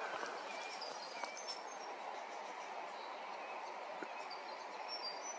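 Outdoor ambience: a steady hiss with short, faint bird chirps scattered throughout, and a few light ticks in the first two seconds.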